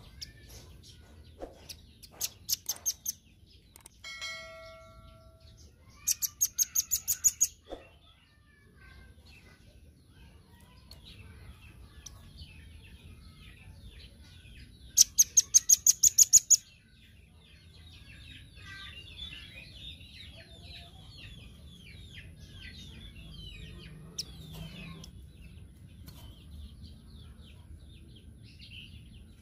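Velvet-fronted nuthatch calling in bursts of rapid, sharp chip notes: a short burst, then two fast trills of about ten notes each, the loudest about fifteen seconds in. Softer twittering runs on through the second half.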